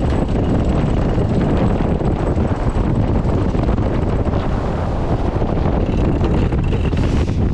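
Heavy, steady wind buffeting the onboard camera's microphone on a racing catamaran under sail, with the rush of water along the hulls beneath it.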